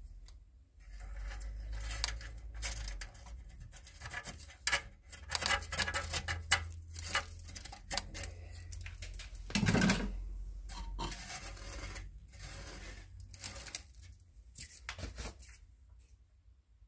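Scraping and rubbing against the spiral stainless steel coils inside a boiler's heat exchanger chamber: a thin metal pick scratching between the coils and fingers raking the gritty deposits of a year's use, with many small clicks and crackles. One louder bump about ten seconds in.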